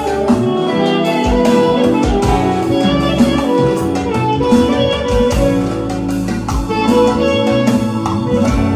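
Instrumental band music with a plucked-string lead melody over bass and a steady drum beat.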